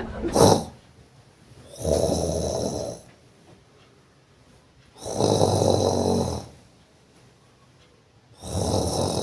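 A man snoring loudly, faked as a prank while he is awake: three long, rasping snores about three seconds apart. Right at the start there is a short, louder sound.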